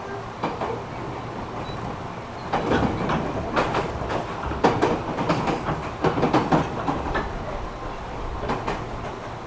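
Running sound inside the passenger car of a JR 205 series electric train: steady rolling noise, with wheels clacking over rail joints in groups of sharp knocks through the middle of the stretch.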